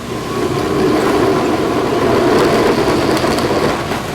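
Power drill spinning the Klein adjustable hole saw in its dust shroud: a loud steady rushing noise with a faint motor whine, starting just after the start and easing off near the end.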